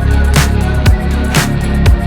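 Background music: an electronic-leaning pop song with a heavy bass line and a steady beat, a drum hit about every half second.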